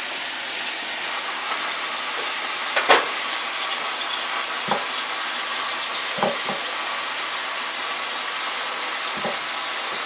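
Marinated rabbit pieces sizzling steadily as they brown in hot olive oil in a frying pan, with a few short knocks, the loudest about three seconds in.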